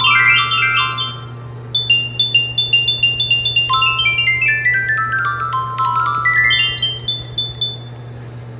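Electronic alert jingle of quick glockenspiel-like chime notes running down in repeated falling cascades over a steady low hum. The notes stop near the end, leaving only the hum.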